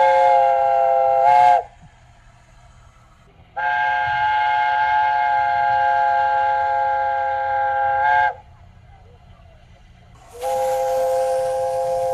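Steam locomotive's chime whistle sounding long, steady chords of several notes. One blast cuts off in the first two seconds, a second one sounds for about five seconds, and a third begins near the end with a hiss of steam. Under it runs the low rumble of the train.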